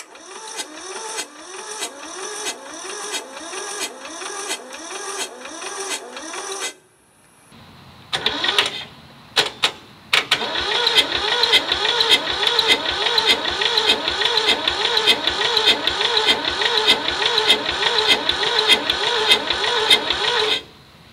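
Electric starter cranking the rusty two-cylinder Toyosha S88 diesel of a Hinomoto tractor, speeding up and slowing with each compression stroke, about two pulses a second. It stops about seven seconds in, gives a few short bursts, then cranks steadily again. The owner finds one cylinder with weak compression and the other with none.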